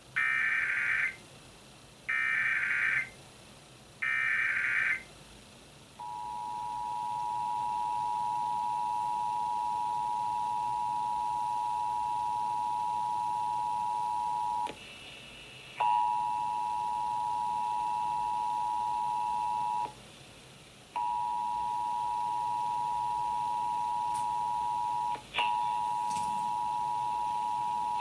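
Emergency Alert System test received on an FM clock radio: three one-second bursts of the digital SAME header, then the steady two-tone attention signal. The attention signal drops out three times, each time with a click.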